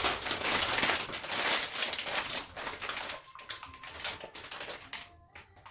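Plastic anti-static bag crinkling as a graphics card is worked into it: dense crackling for about three seconds, thinning to scattered rustles near the end.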